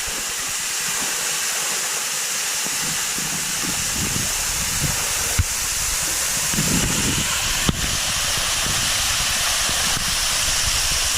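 Waterfall's falling water rushing steadily and close by, with two sharp knocks about five and eight seconds in.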